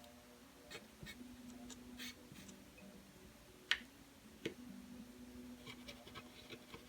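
Faint scratching and light ticks of hand work on the AKAI MPK Mini's opened circuit board while it is cleaned, with a sharper click about halfway through, over a faint low hum.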